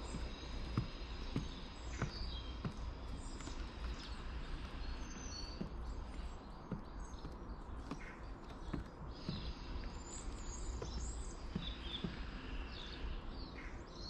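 Wood pigeon pecking seed off a bird table's grooved boards: sharp, uneven taps about once every second or two. Small birds chirp in the background over a low steady rumble.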